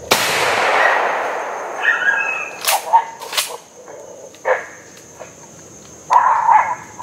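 A shotgun shot going off, loud and echoing away over about a second and a half, followed by two more sharp cracks about three seconds in.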